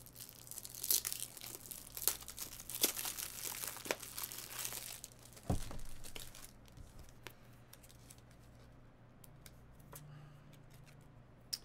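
Crinkling and tearing of a foil trading-card pack wrapper, with one sharp knock about five and a half seconds in; the crackling dies down after about six seconds.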